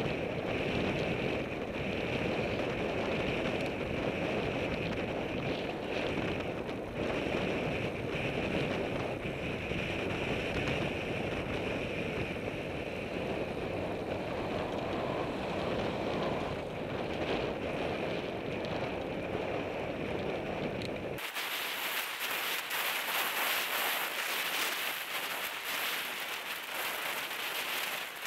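Wind buffeting the microphone of a helmet-mounted camera on a road bicycle at speed, a steady rushing roar. About 21 seconds in it changes abruptly to a thinner hiss with the low rumble gone.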